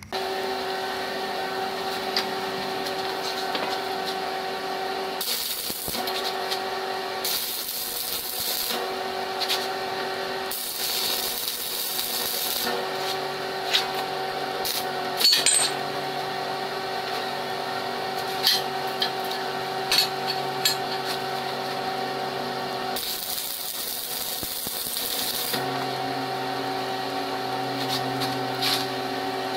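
MIG welder laying short welds on steel square tubing: the arc crackles in four bursts of one to two and a half seconds each, with a few sharp clicks between them. A steady hum runs underneath.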